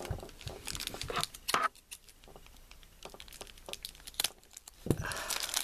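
Thin plastic bag around a small toy figure crinkling as it is handled and then cut with scissors: scattered short crinkles and clicks with a quieter stretch in the middle, and a soft thump near the end.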